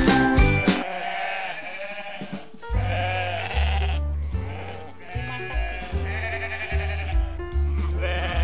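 A goat bleating several times in wavering calls, over background music with a steady low bass beat.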